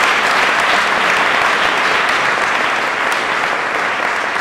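Audience applauding, loud and sustained, beginning to ease off near the end.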